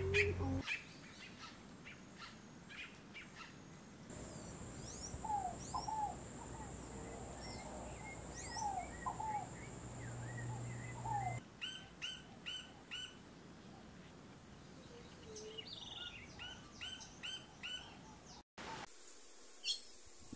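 Several songbirds chirping and calling, short whistled notes and chirps scattered throughout, with a steady high-pitched tone under them through the middle section. The background changes abruptly a few times where clips are cut, with a brief dropout near the end.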